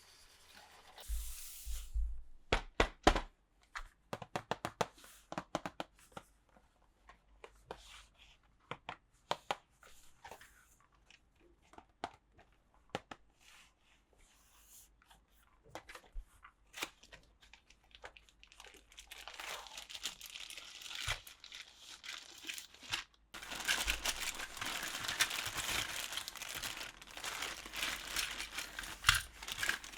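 Toy packaging being handled: scattered clicks and knocks, then from about twenty seconds in a continuous crinkling and tearing of wrapping that grows louder.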